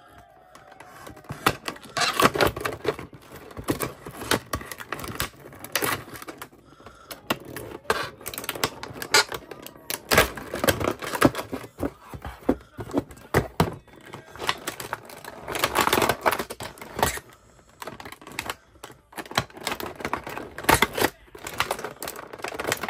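Plastic blister packaging and its cardboard backing card of a carded action figure being handled, giving an irregular run of crackles and clicks.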